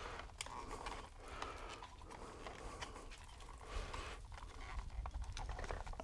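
Quiet, irregular clicks and scuffs of stiff mains cable being folded into a plastic back box and the weatherproof socket being pushed into place.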